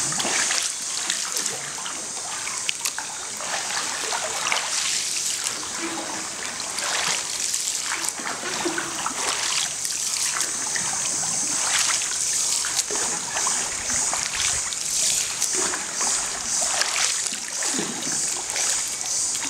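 Water splashing and trickling around a bamboo raft being poled through a still pool, with irregular small splashes.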